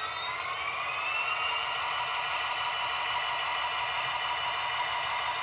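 An HO-scale SD70M's sound decoder playing its diesel locomotive engine sound at low throttle, from the model's small onboard speaker. A whine rises in pitch through the first second or so as the engine sound works up, then holds steady.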